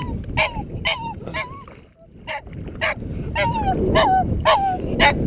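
Small dog yipping excitedly in quick, high, shrill yelps, about two to three a second, with a short pause about two seconds in, over a steady low rumble.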